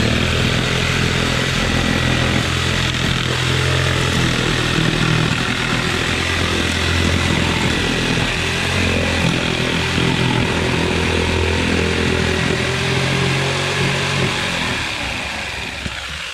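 Corded electric jigsaw running steadily as its blade cuts along a line through wooden fence boards, a loud motor hum with a rasping saw hiss over it, easing off slightly near the end.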